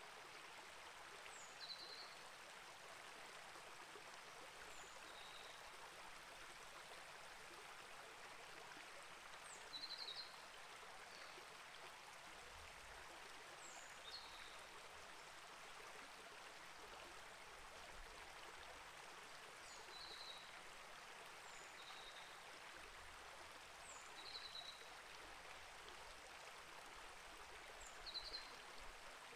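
Small rainforest creek flowing steadily over rocks. A bird repeats a short, high two-note call every few seconds.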